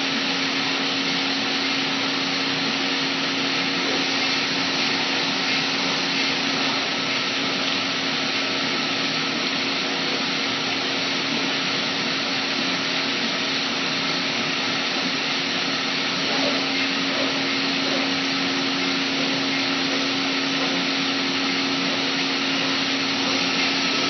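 Komo VR510 Mach Xtreme CNC router running: a steady, even machine noise with a constant low hum and a fainter high whine, unchanging in pitch and level.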